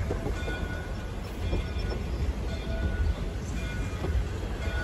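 Heavyweight steel passenger coaches of a steam-hauled train rolling slowly past with a steady low rumble of wheels on rail. A few clacks at rail joints and brief high squeaks come back about once a second.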